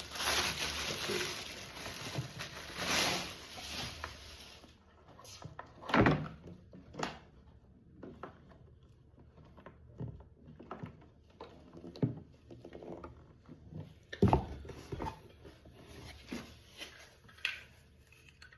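Plastic bag rustling and crinkling for the first few seconds, then plastic machine parts being handled and set down, with scattered light knocks and two loud thumps about six and fourteen seconds in.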